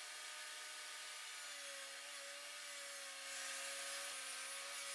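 DeWalt DWE7491RS 10-inch table saw running with a dado stack fitted, cutting a groove in a plywood drawer piece as it is fed through. The motor's steady hum and whine hold throughout, and the cutting noise grows louder about three seconds in.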